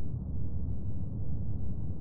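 Designed sci-fi alien-landscape ambience: a deep, steady rumble that wavers slightly in loudness, with nothing bright or high-pitched in it.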